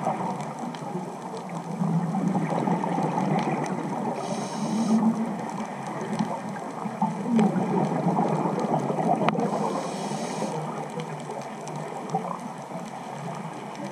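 Underwater sound of a scuba diver breathing through a regulator: a steady low bubbling rumble, broken twice by a short hiss of inhalation about five seconds apart.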